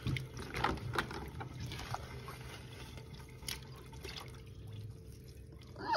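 Water sloshing and splashing in a stainless steel sink as hands scrub and rinse pieces of raw tripe, in irregular strokes that thin out after the first few seconds. A short falling sound comes right at the end.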